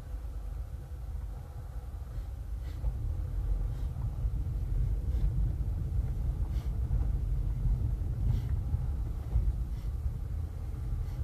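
Car driving slowly on a rough dirt road, heard from inside the cabin: a steady low rumble of tyres and suspension that grows louder a few seconds in, with occasional light knocks over rocks and bumps.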